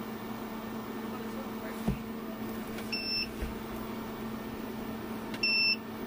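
Renogy inverter charger's control-panel buttons beeping as they are pressed: a short high beep about three seconds in and a slightly longer one near the end. A steady low hum runs underneath, and there is a soft knock about two seconds in.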